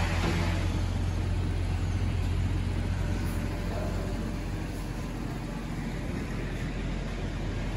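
Steady low outdoor rumble with a faint hiss over it, easing slightly in the second half.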